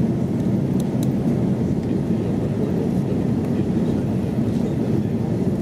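Steady low rumble inside the cabin of an Airbus A330-300 airliner on approach with its flaps extended: engine and airflow noise heard from a window seat over the wing.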